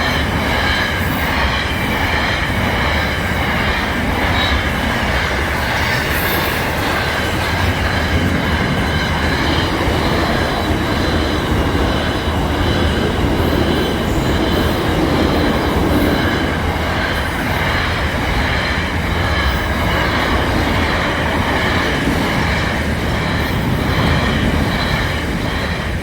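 Train running along the track with continuous, loud wheel-on-rail noise and a steady high squeal from the wheels.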